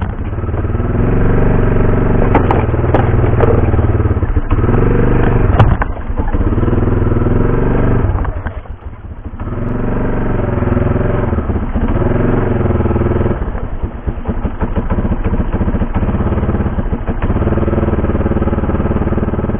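Four-wheeler (ATV) engine running as it is ridden along a rough trail, its pitch rising and falling with the throttle and easing off briefly about halfway through. Knocks and rattles sound in the first few seconds.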